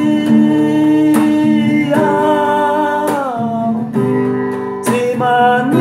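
Music: acoustic guitar strumming under a singer's long held, wordless vowel that slides down in pitch about three seconds in and rises again near the end.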